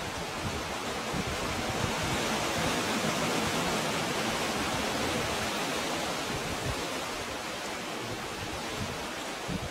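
Sea water surging into a narrow rocky inlet and washing back: a steady rush of water that swells about two seconds in and eases off towards the end.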